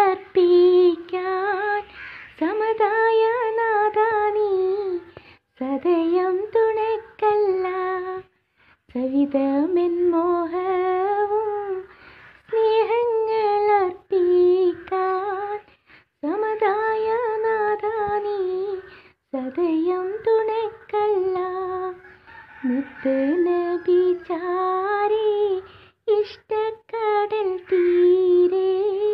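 A woman singing a Malayalam madh song, a devotional song praising the Prophet, solo and unaccompanied. She sings in ornamented melodic phrases with short pauses between them.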